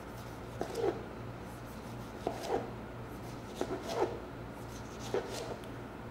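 A chef's knife slicing through a tomato on a plastic cutting board: four short slicing strokes about a second and a half apart, each a quick rasp.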